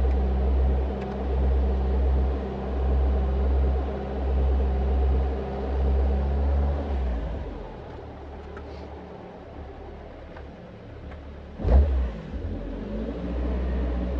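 Caterham Super Seven 1600's engine running steadily with a slow, regular swell in loudness. About seven seconds in, the revs fall and it goes quieter. Near the end there is a single sharp thump, then the revs rise again.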